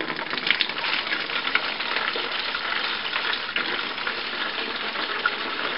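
Honey-water mead must pouring from a stainless steel stockpot through a plastic funnel into a plastic gallon jug: a steady splashing gush.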